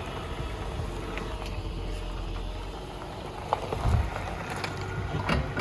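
A car running at close range, a steady low rumble, with a few light clicks and a dull knock about four seconds in.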